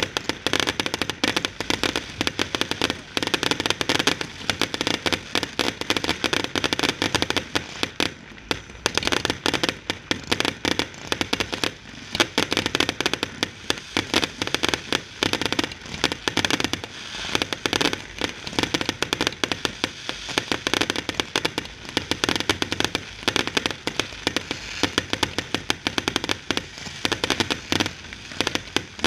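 Fireworks display firing a dense barrage: aerial shells launching and bursting in rapid succession with crackling, many bangs a second, thinning briefly about eight seconds in.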